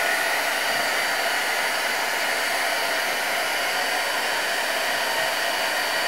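Pencil heat gun blowing hot air steadily, a constant rush of air with a faint whine, as it shrinks heat-shrink tubing over an XLR connector.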